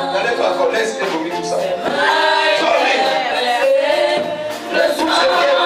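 A choir of several voices singing a worship song together.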